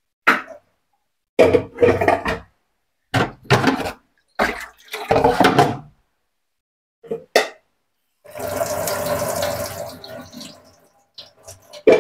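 Chopped banana flower being rinsed in a colander: water splashing and sloshing in several short bursts, then a tap running steadily for about two seconds near the end.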